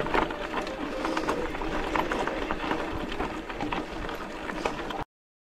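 Bicycle rolling down a gravel track: the tyres crunch over loose stones with a run of small irregular clicks and rattles. It cuts off suddenly near the end.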